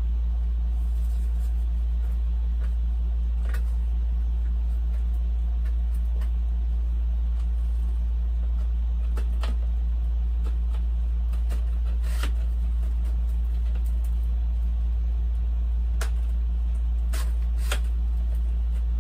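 A steady low hum runs without change, with a handful of brief clicks and crinkles as a model plane's wing and its packaging are handled.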